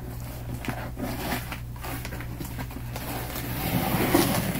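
A heavily taped cardboard box being worked open by hand: irregular scraping, tearing and rustling of tape, cardboard and packing paper, louder near the end.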